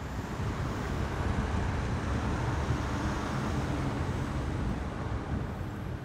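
Steady low rumble of city road and rail traffic, with a commuter train crossing an arched railway bridge. It builds slightly over the first second, then holds even.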